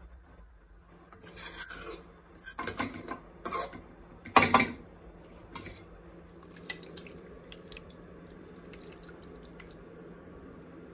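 A metal ladle scraping in a steel pot and against a glass baking dish as curry is ladled out, in a few short bursts with the loudest about four and a half seconds in, followed by a few light clinks.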